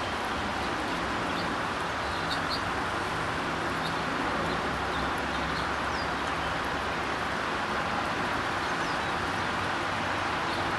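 Steady outdoor background noise with a faint low hum, and a few brief, faint high chirps from birds scattered through it.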